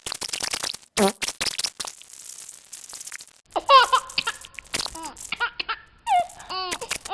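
Novelty sound effects played back greatly sped up. The first half has scattered clicks and a short falling squeal, which fits a fart effect. About halfway in comes high-pitched, chipmunk-like laughter.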